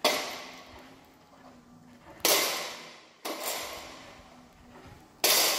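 Four sharp bangs, each ringing away over about a second in an echoing room.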